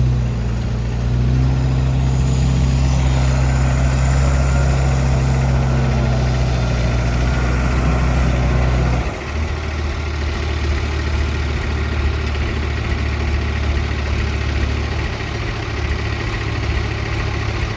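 Diesel engine running at raised revs with a steady pitch, then dropping abruptly to a lower idle about nine seconds in.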